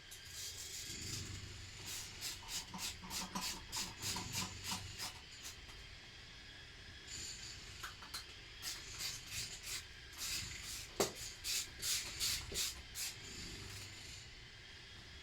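Quick back-and-forth scraping strokes on metal, in two bouts, with a single sharp click partway through the second. This is the Lister D oil filler's lid being worked free where paint has stuck it to the body.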